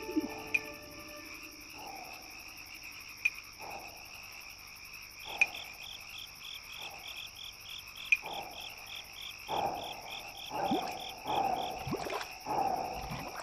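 Night-forest ambience: a steady high insect drone with a fast pulsed chirping for a few seconds in the middle, a sharp tick every few seconds, and falling frog-like croaks that come more and more often towards the end.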